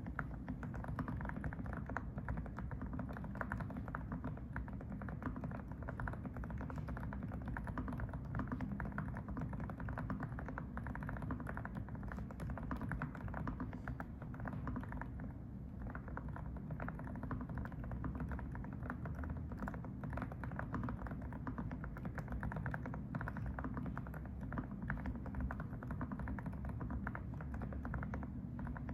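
Steady, continuous typing on a FreeFlow AK68 mechanical keyboard fitted with low-noise (silent) Didimdol switches. The keystrokes are dull and soft, with little sharp click.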